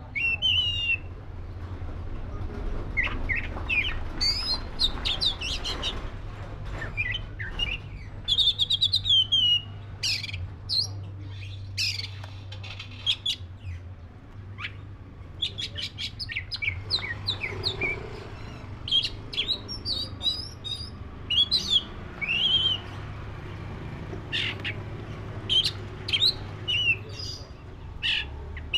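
Oriental magpie-robin of the black-breasted form (kacer dada hitam) singing: a varied run of short, clear whistled notes and chirps with quick rising and falling slides, broken by brief pauses, over a steady low hum.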